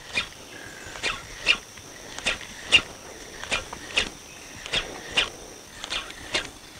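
Sharp clicks from the spinning rod and braided line as a jerkbait is twitched twice and paused, over and over: about five pairs of clicks, each pair about half a second apart.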